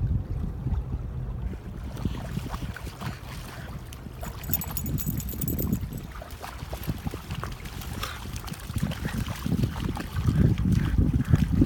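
Wind buffeting the microphone, a gusty low rumble that swells near the end, with scattered small clicks.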